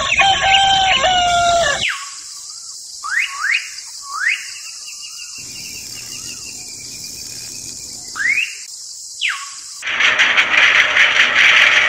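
Bird-like chirps and a few short rising whistles. About ten seconds in, a loud, harsh, rasping noise starts up: a small engine beginning to crank.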